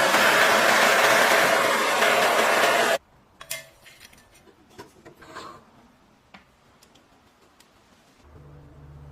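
A loud, steady mechanical noise, like a power tool working metal, cuts off abruptly about three seconds in. After it come quiet handling sounds: scattered light clicks, taps and rubbing of small parts. A low hum starts near the end.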